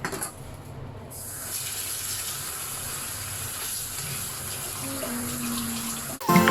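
Tap water running steadily into a sink, starting about a second in and cutting off suddenly near the end.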